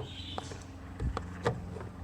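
Scattered light clicks and knocks of the headlight housing's cover cap and wiring being handled as the cap is fitted back on, over a steady low hum.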